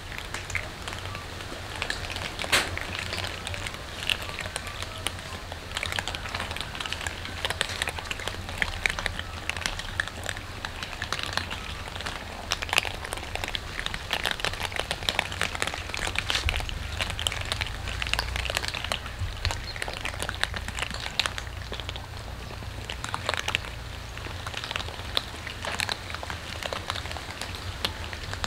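Many cats crunching dry kibble at once: a dense, continuous crackle of small crunches and clicks over a low steady hum.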